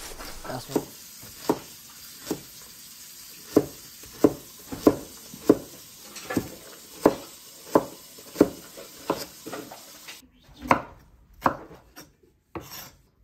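Knife chopping vegetables on a cutting board in slow, even strokes, about one chop every two-thirds of a second.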